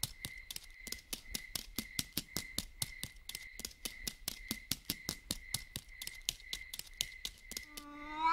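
Faint night-time cricket chirping, a fast even pulse of about five chirps a second. Near the end a cat starts a long, rising meow.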